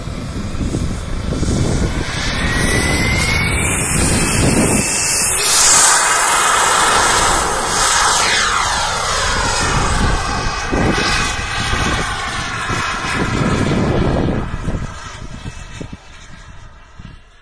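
JetCat P60 model jet turbine whining as the radio-controlled jet accelerates down the runway, its pitch rising steadily over the first few seconds. It is loudest as it passes about six seconds in, then the whine slides down in pitch as the jet climbs away and fades out near the end.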